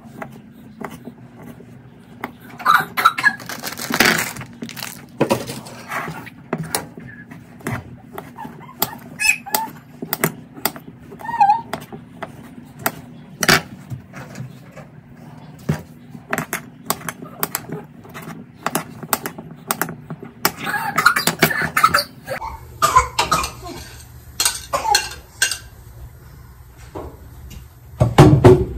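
Kitchen knife cutting hot dogs into pieces on a plate, the blade clacking against the plate in irregular taps.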